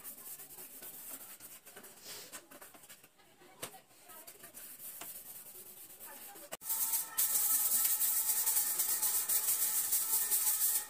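Faint rubbing of a cloth on ceiling fan blades with a few light clicks. About two-thirds in, it gives way abruptly to a much louder, steady scratchy swishing of a broom brushing a wall.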